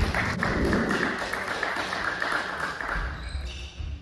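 Table tennis hall: ping-pong balls tapping on bats and tables, with scattered voices in the background.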